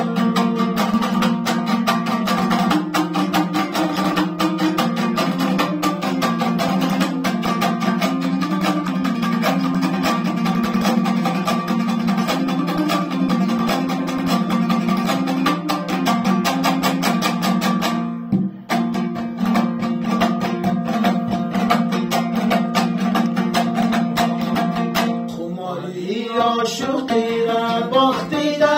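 Hazaragi dambura strummed fast and steadily in an instrumental passage, its two strings giving a droning accompaniment under a stepping melody, with a brief break about two-thirds of the way through. Near the end, men's voices come in singing over the strumming.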